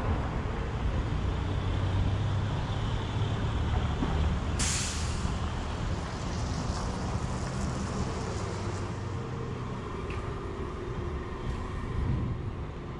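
City street traffic: a steady low engine rumble from passing or idling vehicles, with a short, sharp hiss about four and a half seconds in that fades within a second.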